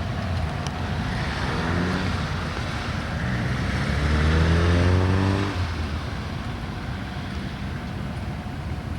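An engine speeding up, its note rising in pitch and growing louder, loudest about four to five seconds in, then dropping away suddenly, over steady traffic or wind noise.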